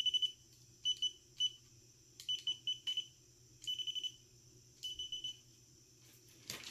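Gardner Bender holiday light tester beeping: a high electronic tone in short groups of rapid pulses, about six groups, with gaps of roughly half a second to a second between them. A few sharp plastic clicks near the end.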